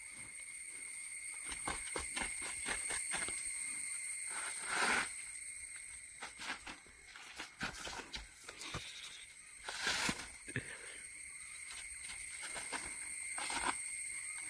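Bare hands and feet scraping and gripping a tree trunk's bark as someone climbs it: a run of short scuffs and rustles, with two louder scrapes about five and ten seconds in. A steady high-pitched drone goes on underneath.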